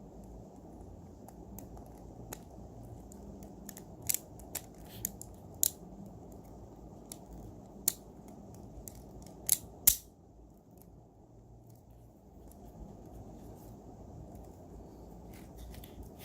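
Handling of a God Valkyrie Beyblade top: a scattered series of short, sharp plastic clicks and snaps between about four and ten seconds in, the last two loudest, over a steady low hum.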